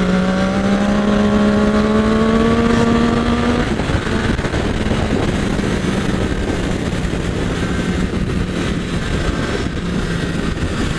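Sport motorcycle engine accelerating, its pitch rising steadily for about three and a half seconds, then easing off and settling into a steady cruise. Heavy wind rush on the bike-mounted microphone runs under it.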